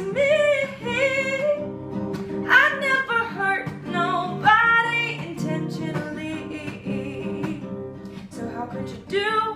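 Acoustic guitar strummed with a capo on, with a voice singing over it; the sung lines swell and fall away in phrases.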